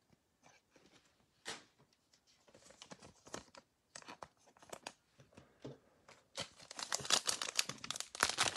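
Faint scattered rustles of cards being handled, then from about six and a half seconds a foil trading card pack (2021 Panini Playoff football) crinkling and tearing as it is opened.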